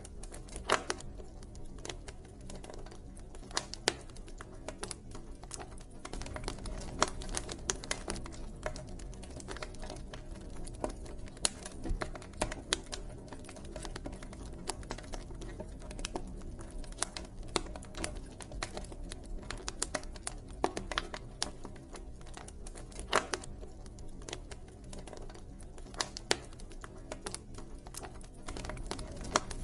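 Wood fire crackling: irregular sharp pops and snaps, some much louder than the rest, over a low steady rumble.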